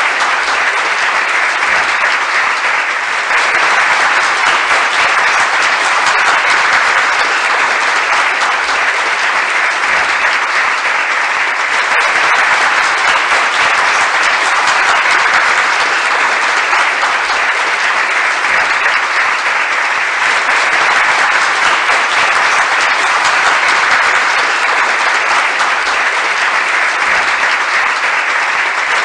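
Crowd applauding steadily: a dense, even wash of many hands clapping at once.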